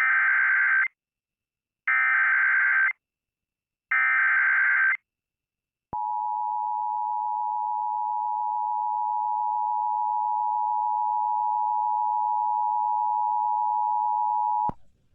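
Emergency Alert System activation: three short raspy data bursts of the SAME header, two seconds apart, then the steady two-tone EAS attention signal, which holds for about nine seconds and cuts off sharply. This is the start of a broadcast alert, here for severe thunderstorm warnings.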